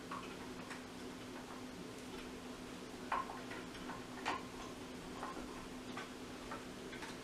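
Faint, irregular clicks and ticks of the plastic parts of a KitchenAid fruit/vegetable strainer attachment being handled and screwed together by hand, over a steady low hum.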